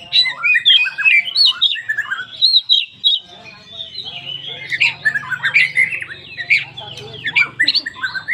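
Oriental magpie-robin (kacer) singing a fast, varied song of whistles and chirps, filled with phrases mimicked from other birds. A short pause comes about three seconds in, and a low hum runs behind the song from there on.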